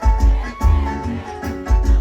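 Live sertanejo-style band music with a heavy bass beat about every half second under sustained instrument notes and guitar.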